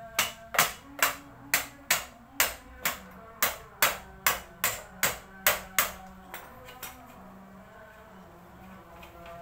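A run of about fifteen sharp knocks at a steady two to three a second, stopping about six seconds in, over background music.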